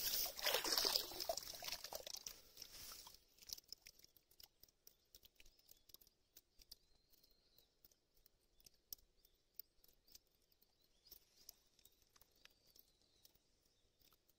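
Dip net dragged through wet leaf litter and shallow pond water, a dense rustling and sloshing that stops abruptly about three seconds in. After that, faint scattered clicks and crinkles as leaf debris in the net is handled.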